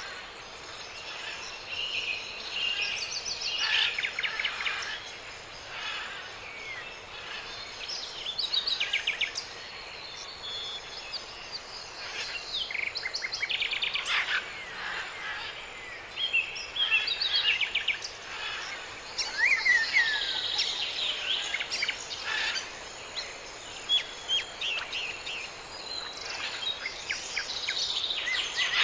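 Several birds calling and singing over one another in a forest: fast chirping trills, short whistles and a falling whistled note about twenty seconds in, over a steady background hiss.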